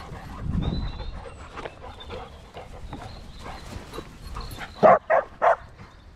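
A dog barks three times in quick succession, about five seconds in, loud and close.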